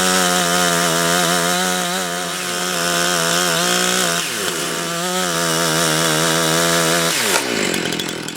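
Chainsaw running at full throttle, cutting through pieces of wood, its pitch wavering under load. The pitch dips and climbs again about four seconds in. Near the end the throttle is released and the engine note falls away. The cuts are clearing burrs left on the chain's teeth after they were ground back from stone damage.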